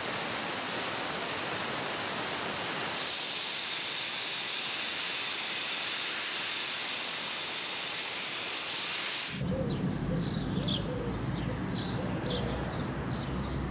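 Dry-ice blaster nozzle hissing steadily as it blasts dirt and old wax off a rusty metal object. About nine seconds in the hiss cuts off and a bird chirps repeatedly, about two calls a second, over a low rumble.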